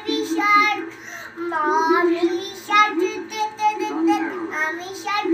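A child singing a song.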